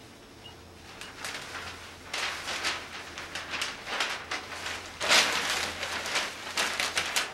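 Newspaper pages rustling and crinkling as they are folded and handled, starting about a second in and loudest about five seconds in.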